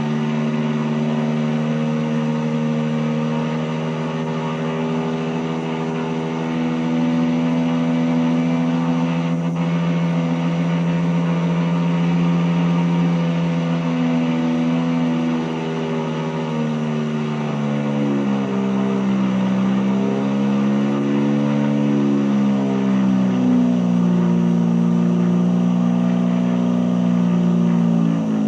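Single-rotor Mazda rotary aircraft engine running with a steady hum. About two-thirds of the way through, its speed drops and wavers up and down for several seconds, then settles again, with a faint tape hiss underneath.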